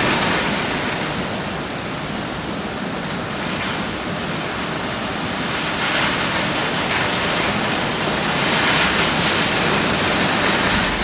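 Loud, steady rushing of water, cut in and cut off abruptly.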